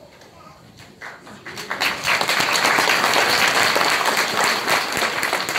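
Audience applauding, starting about a second in and swelling to a loud, steady ovation.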